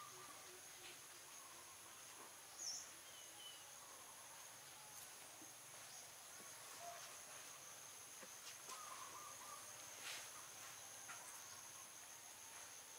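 Faint outdoor insect chorus: a steady high-pitched drone on two pitches, with a few soft bird chirps and a brief high chirp a little under three seconds in.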